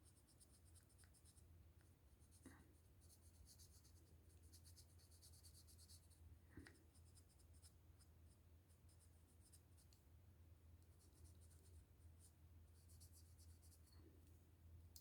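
Faint, quick scratchy strokes of a marker tip rubbing over the plastic parts of a model kit while colouring in shading, in repeated runs with short pauses, and a couple of small knocks. A low steady hum lies underneath.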